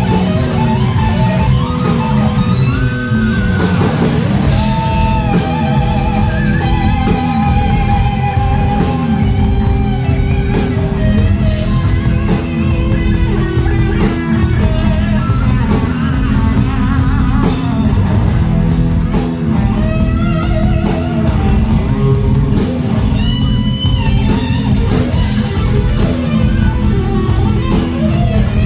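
Rock band playing an instrumental stretch: an electric guitar lead with held, wavering notes over bass and a steady drum beat.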